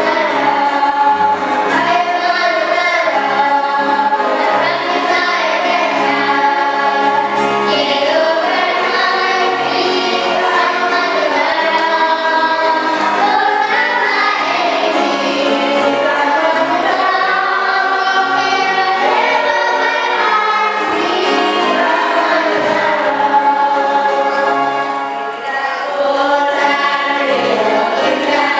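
A choir singing a hymn with accompaniment, many voices holding and moving between sustained notes.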